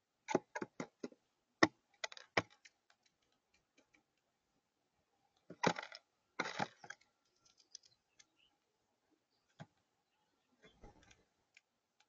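Blue jay pecking at loose birdseed on a tabletop feeder: sharp beak taps and clicks, singly and in quick irregular clusters.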